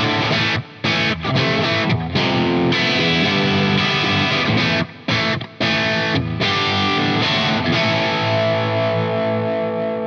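GrassRoots G-SNAPPER 24/M AS electric guitar (ash body, roasted maple neck) played through overdrive: a distorted riff of chords and notes, choked off short about five times, then a chord let ring from about eight seconds in.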